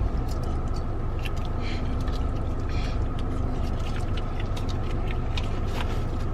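Steady low hum of a parked car's engine idling and its ventilation running, heard inside the cabin, with a few faint clicks and rustles of food packaging being handled.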